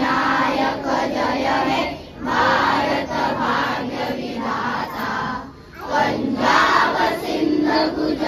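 A large group of voices, students among them, singing together in unison, in phrases with short breaks about two seconds and five and a half seconds in.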